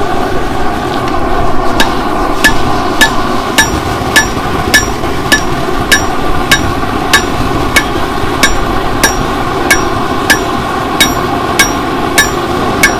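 Hand hammer striking steel on an anvil in a steady rhythm, a little under two blows a second, starting about two seconds in. Each blow rings briefly. A steady roar runs underneath.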